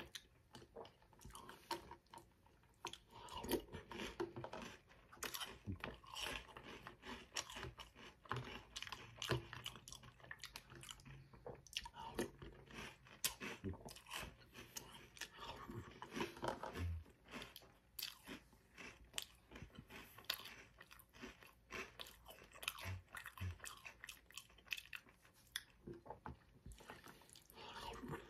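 Chewing and crunching of a mouthful of Reese's Puffs cereal in milk, in many irregular crunches.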